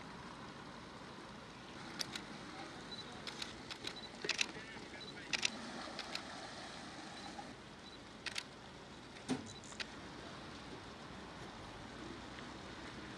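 Steady background noise with scattered sharp clicks and knocks, most of them in the first half, and a faint high-pitched beep repeating for a few seconds.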